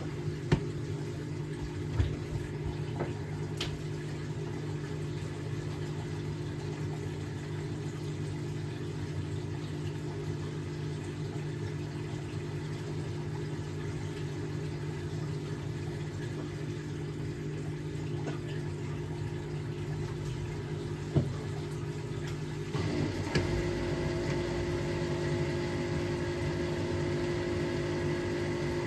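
Hotpoint washing machine's drain pump running steadily as it pumps out the water, with a few sharp clicks. Near the end a louder machine hum with higher tones joins in.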